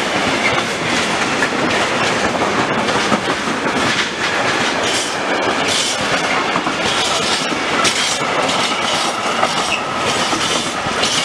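Mixed freight train of container and tank-container wagons rolling past: a steady rush of steel wheels on rail, broken by irregular clacks as the wheels run over rail joints.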